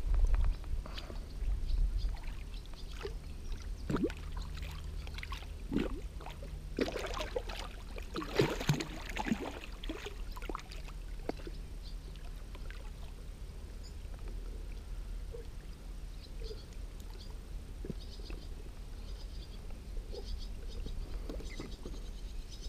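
A hooked carp splashing and thrashing at the surface beside a float tube as it is drawn in by hand. The water sounds come in a series of sharp splashes, heaviest about eight to nine seconds in, then die down, over a steady low rumble.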